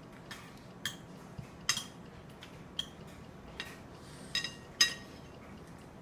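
A spoon clinking and scraping against a ceramic bowl as a toddler scoops food: several separate, uneven clinks, each with a brief ring from the bowl, the loudest near the end.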